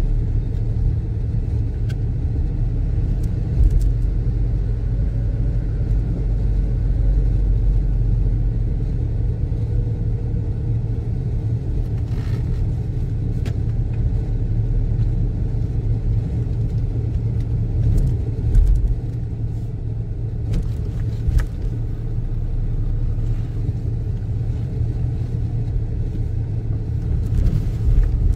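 Car engine and tyre noise heard from inside a moving car, a steady low rumble with a few brief knocks.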